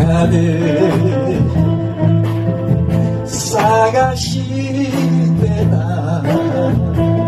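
A man singing a Japanese song into a handheld microphone over a karaoke backing track.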